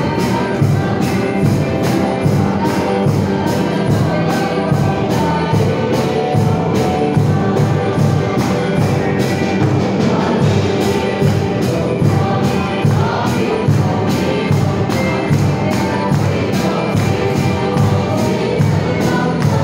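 Live praise and worship music: a church band with drums, bass, guitar and keyboard playing a praise song while the congregation sings along together, over a steady beat of about two strokes a second.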